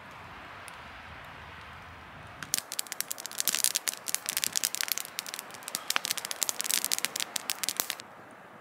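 Wood campfire in a stone ring crackling and popping: after a steady rushing hiss, a dense run of sharp snaps starts about two and a half seconds in and stops suddenly near the end.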